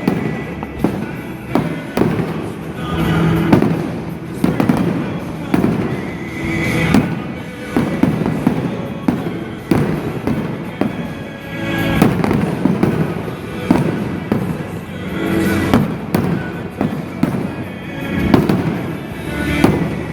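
A fireworks display: many sharp bangs and bursts, one after another, with music playing along underneath.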